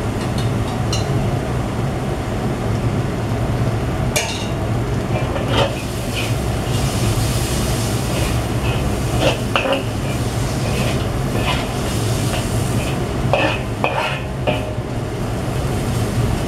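Sliced onions sizzling in oil in a wok, stirred with a metal spatula that scrapes and clinks against the pan every second or two, over a steady low hum. The onions are being fried until lightly caramelised.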